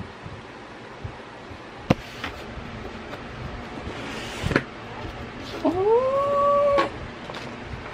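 Cardboard mailer box handled and opened on a desk: a few sharp knocks and taps, then near the end a squeal that rises in pitch and holds for about a second before cutting off.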